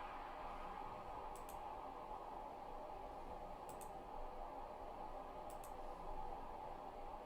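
Soft steady wind sound bed, an even rushing with no gusts. Faint sharp double clicks come about every two seconds, three times.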